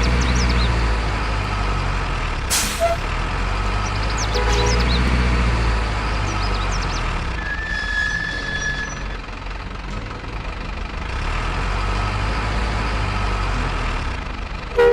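Truck engine sound from an RC Scania truck, a steady low rumble, with a short air-brake-like hiss about two and a half seconds in and a brief high tone near the middle.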